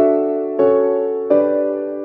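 Background music: an electric piano playing three chords in slow succession, each struck and left to fade.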